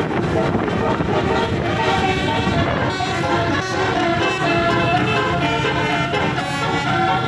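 Tour bus's roof-mounted basuri (telolet) air horns playing a tune of quick, changing notes.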